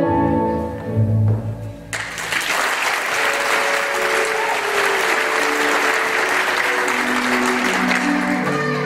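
Orchestral ballet music stops about two seconds in and a theatre audience breaks into applause, which starts suddenly and runs on steadily. The music starts up again near the end.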